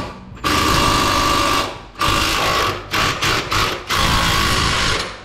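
Cordless electric ratchet running in about five short trigger bursts, a whine with a rapid rattle, loosening the bolts of a frame bracket under the truck.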